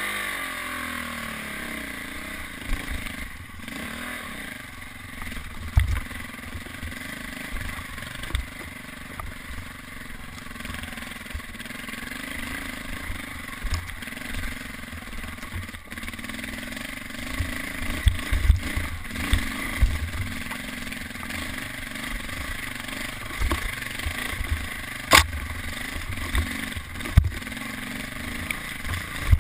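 Dirt bike engine running as the bike is ridden up a rough singletrack, its pitch rising and falling with the throttle. Frequent short thumps and knocks come through as the bike bounces over roots and ruts.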